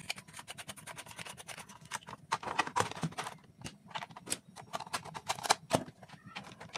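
Plastic bulb holder being handled and fitted onto a plastic switch board: a dense run of small, irregular plastic clicks and scrapes.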